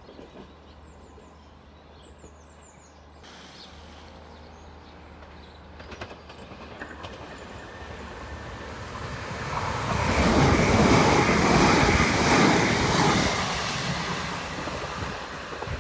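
Southern Class 377 Electrostar electric multiple unit approaching and running in along the platform: a wheel-on-rail rumble that builds from faint to loud, peaks about ten seconds in, then eases off.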